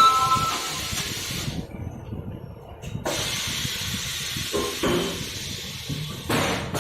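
Compressed air hissing at a tyre-changing station. The hiss cuts off about one and a half seconds in and starts again about a second and a half later, with a brief squeak at the very start.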